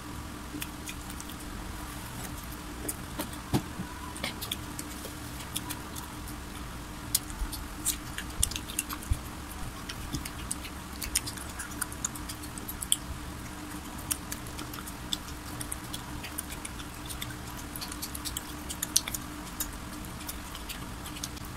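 Close-up mukbang eating sounds from fried chicken: chewing with many small, irregular crunches and wet clicks, and the chicken being pulled apart and handled. A faint steady hum sits underneath.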